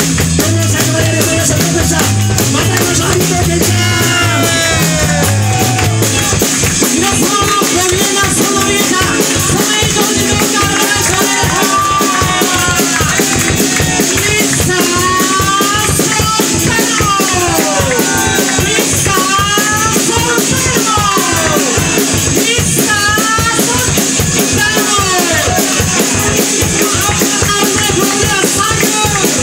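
Live soul band playing loud: a drum kit keeps a fast, steady beat under bass and electric guitar.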